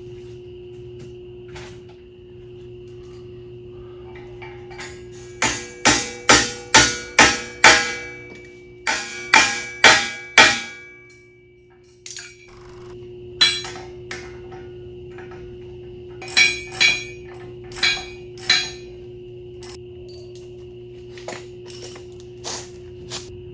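Hammer blows on the steel of a scrap-built roller compactor, metal ringing on metal: a quick run of about six strikes, three more after a short pause, then scattered single blows.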